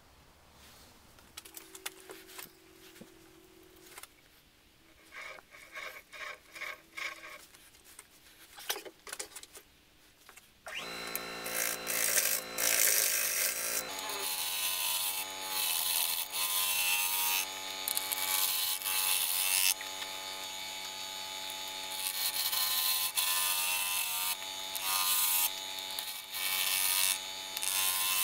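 A wood lathe spins a turned wood blank with a steady motor hum, while something held against the spinning wood makes a rubbing hiss in repeated bursts. Before the lathe sound starts, about ten seconds in, there are only quieter, scattered scrapes and rubs of hand work.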